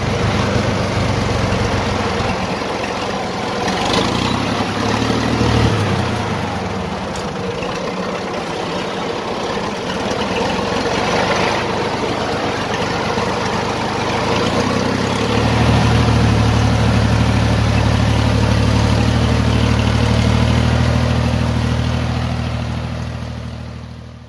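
Diesel engine of a loaded xe cày farm tractor-truck running, its note shifting a few seconds in, then running steadier and louder from about halfway through.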